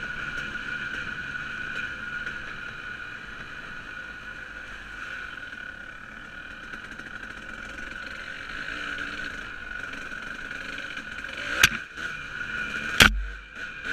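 Dirt bike engine running steadily at an even pitch while riding a trail. Near the end come a few sharp knocks, one with a low thump.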